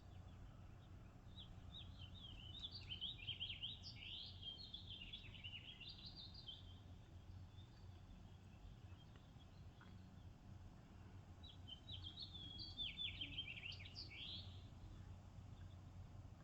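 A songbird singing two long phrases of rapid, jumbled twittering notes, the second starting about halfway through, over a faint steady low hum.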